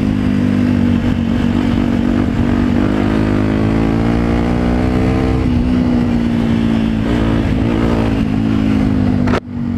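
Small motorcycle engine running under way. Its note climbs slowly for a couple of seconds as the bike picks up speed, then drops back and wavers with the throttle. The sound cuts out sharply for a moment near the end.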